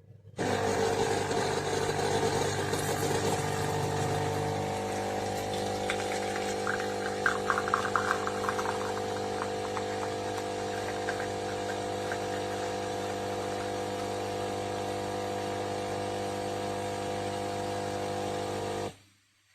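Philips Senseo Maestro coffee pad machine's pump running through a brew, a steady hum with crackling and sputtering partway through, cutting off abruptly near the end.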